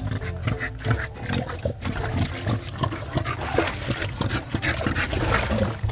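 Dog giving repeated low, pig-like grunts while being scrubbed in a tub of soapy water.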